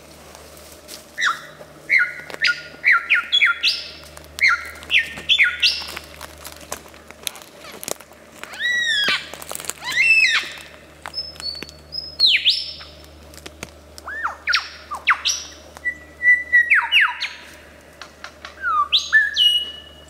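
Male superb lyrebird singing its display song: a fast run of loud, varied calls with sharp down-slurred notes, arching whistles and short trills, much of it mimicry of other birds.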